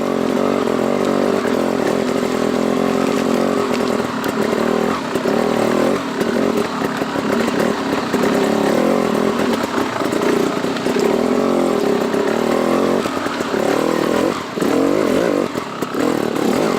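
Dirt bike engine running continuously under riding load, its pitch wavering up and down with the throttle, a little more unsteady near the end.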